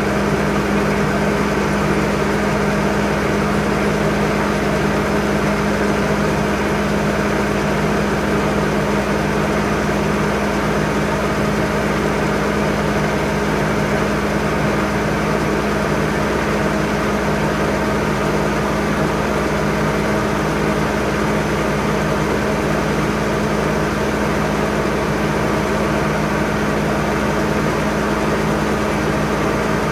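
Grain auger running steadily while wheat drains out of a hopper-bottom trailer into it: a constant, unchanging mechanical hum from the auger's drive.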